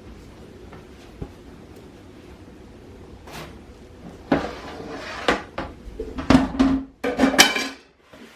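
Kitchen handling clatter: a faint click about a second in, then from about halfway a run of loud knocks and rattles as things are moved about and set down, busiest near the end.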